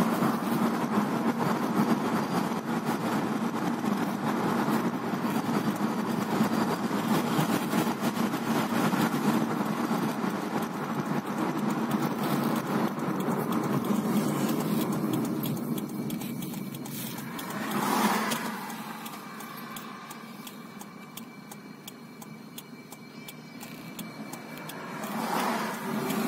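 Steady road and engine noise inside a moving car's cabin. It falls quieter about sixteen seconds in, with a short whoosh of a passing vehicle at about eighteen seconds and a truck passing close near the end.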